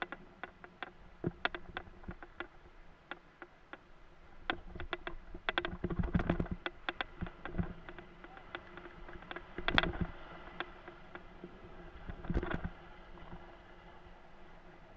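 Windsurf rig and board under way, heard through a camera housing fixed to the rig: irregular sharp clicks and taps, with heavier thumps about six, ten and twelve and a half seconds in.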